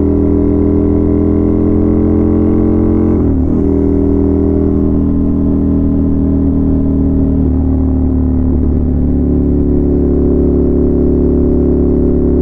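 Ducati Scrambler's air-cooled L-twin running loud through an aftermarket exhaust at a steady highway cruise. The engine note dips briefly about three seconds in and shifts slightly again around eight seconds in.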